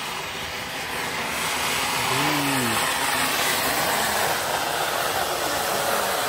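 Ground fountain firework (flower pot) spraying sparks with a steady rushing hiss that grows louder about a second in.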